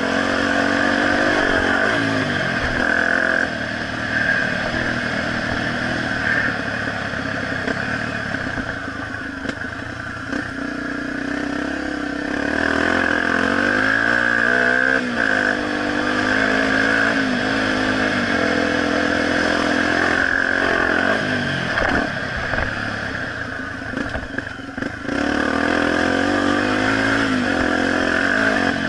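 Honda XR250 Tornado's single-cylinder four-stroke engine running hard as the bike is ridden around a dirt motocross track, its pitch rising and falling over and over as the rider opens and closes the throttle.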